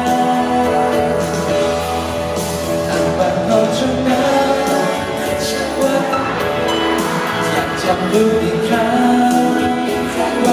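Live pop music: a man singing into a microphone while playing a keyboard piano, held sung notes over the accompaniment.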